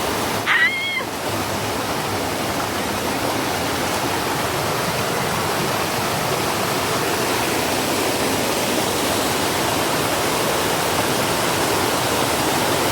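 Rushing water of Dunn's River Falls, a steady hiss of water cascading over rocks. About half a second in, a brief high-pitched squeal rises over it.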